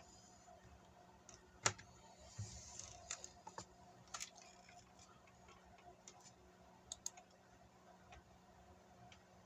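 Near silence broken by scattered faint clicks and ticks, the loudest a single sharp click nearly two seconds in, followed by a brief soft hiss.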